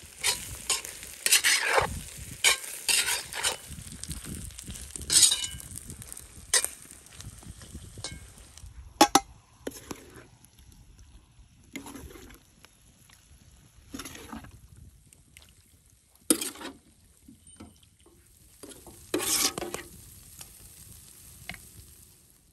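A spoon stirring and scraping food in a cooking pot, in irregular strokes. The strokes come thick and loud for the first half, then sparser, with a few louder scrapes near the end.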